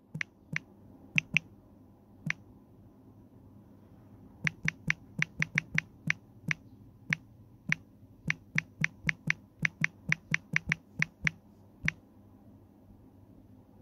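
Short clicks of typing on a smartphone's on-screen keyboard, one per keypress. A few separate taps come first, then a quick, irregular run of about two dozen from about four seconds in to near the end.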